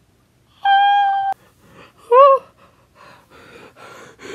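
A child's voice acting out terror: a long steady high cry that cuts off suddenly, a short yelp, then quick gasping breaths.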